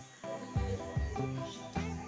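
Background music with held bass notes and melody. It dips briefly at the start, then comes back in full.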